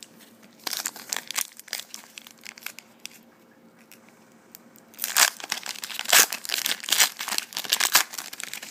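Foil wrapper of a trading card pack crinkling in the hands, with scattered crackles at first. About five seconds in it is torn open, and a dense run of loud crinkling follows.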